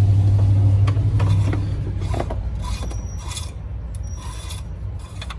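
Short scraping and rubbing noises with a few sharp clicks, over a steady low hum that fades away after the first second or two.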